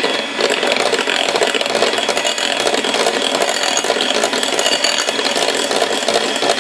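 Electric hand mixer running steadily, its beaters churning cake batter in a glass bowl: a high steady motor whine over a fast rattle.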